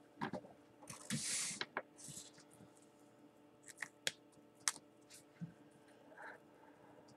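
Handling a felt-tip marker on paper: a brief scratchy rustle about a second in, then a few sharp clicks a few seconds in as the marker is handled at the top of the sheet.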